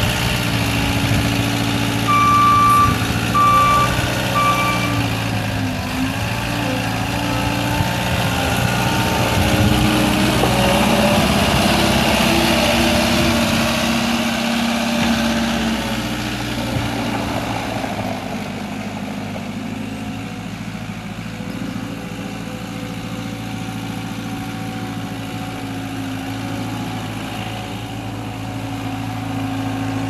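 JCB 190 skid steer's 2.5-litre four-cylinder turbo diesel running as the machine drives, with its backup alarm beeping a few times about two seconds in. The engine grows fainter as the machine moves away, then louder again near the end.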